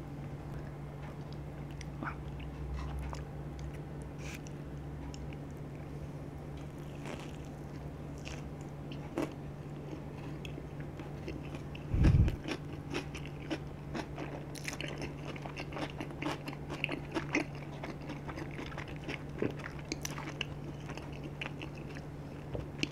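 Close-miked eating: biting into and chewing a slice of tandoori chicken pizza with a charcoal-dough crust, with crunches and small mouth clicks scattered throughout. A louder dull thump about halfway through.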